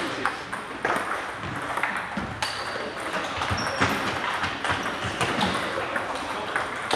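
Table tennis balls clicking off paddles and tables, many irregular clicks from rallies on several tables at once, echoing in a large hall. A couple of short, high squeaks cut in partway through.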